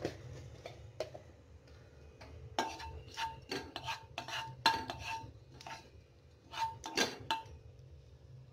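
Spatula tapping and scraping against a nonstick kadai while stirring cumin seeds in a little oil: a string of light knocks and clicks, most of them between about two and seven and a half seconds in.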